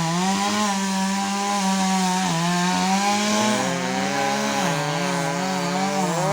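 Two-stroke chainsaw running at high speed, its pitch wavering and dipping a little as it cuts into wood.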